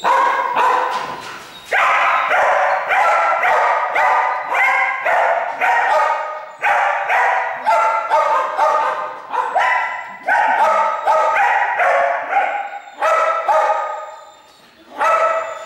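Dogs barking over and over in quick runs of several barks a second, with short breaks and a lull about fourteen seconds in.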